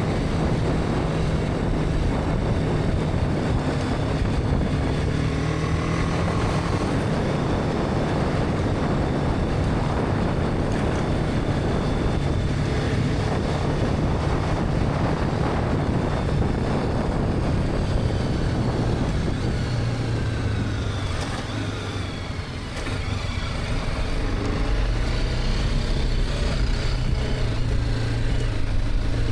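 BMW G310R's single-cylinder engine running under way, with wind and road noise. About three-quarters of the way in the engine note drops off briefly as the throttle closes, then rises again as it accelerates.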